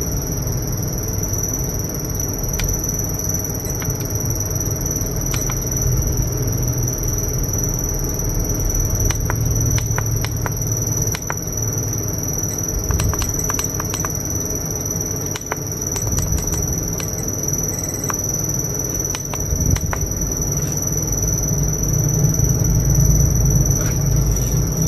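A steady high-pitched whine runs over a low rumble, with scattered light clicks and taps from a box and small parts being handled.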